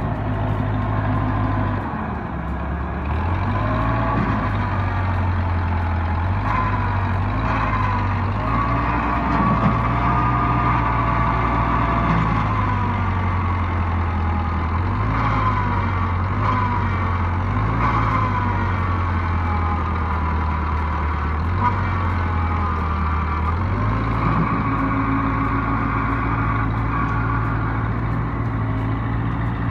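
Backhoe's diesel engine working under changing load, its note stepping up and down several times, with a higher whine that rises and falls as the machine digs and pushes.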